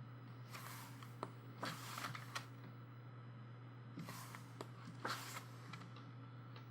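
Pages of a photobook being turned by hand: about four soft paper swishes with light taps, over a steady low hum.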